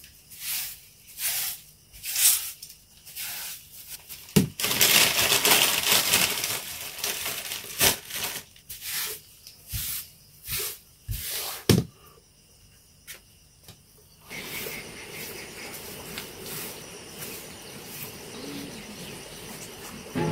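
Short broom sweeping a concrete floor: quick swishing strokes about every half second, with one longer unbroken sweep a few seconds in and a couple of sharp knocks. The strokes stop about twelve seconds in and give way to a steady faint hiss.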